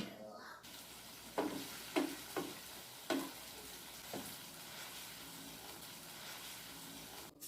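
Food sizzling as it fries in a pan, with a utensil knocking against the pan about five times in the first half. The sizzle cuts off suddenly just before the end.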